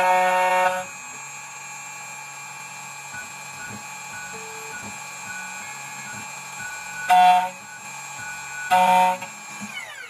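CNC key cutting machine milling a brass Honda HON66 key blank: a steady machine whine with a soft hum, broken by three short, loud pitched buzzes, at the start, about seven seconds in and about nine seconds in. Right at the end the whine starts to fall in pitch as the cutter winds down.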